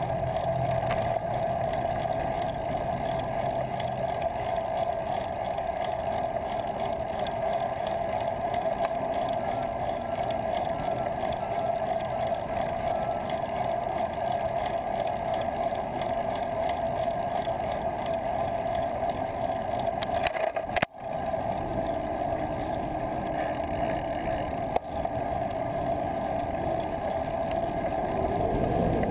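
Steady, muffled road and wind noise of a bicycle riding through city traffic, heard through a bike-mounted action camera. A low hum fades out in the first few seconds, and the sound cuts out for an instant about 21 seconds in.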